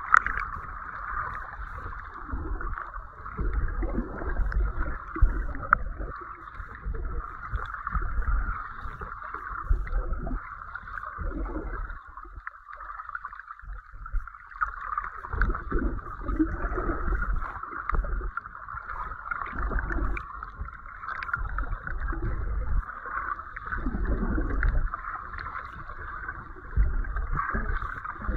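Muffled underwater sound picked up by a camera held below the surface while snorkelling: a steady hiss, with low rumbling surges of moving water every few seconds.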